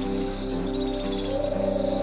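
Wild birds chirping in quick, high calls over background music with steady held tones.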